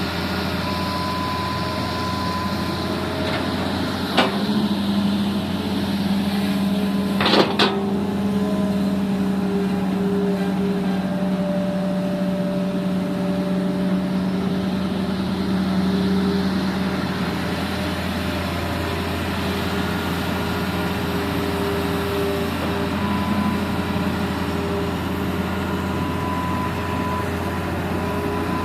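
Diesel engines of an excavator and a dump truck running steadily, with two sharp knocks about four and seven seconds in.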